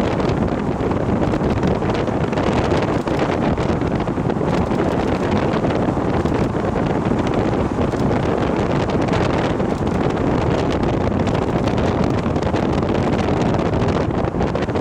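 Steady wind noise rumbling on the microphone, with no engine or other distinct sound standing out.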